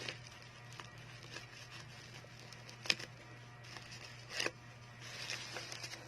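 Parcel packaging being handled and pulled at while it is opened: scattered small clicks and crinkles, a sharp click about three seconds in and a louder rustle about a second and a half later, over a steady low hum.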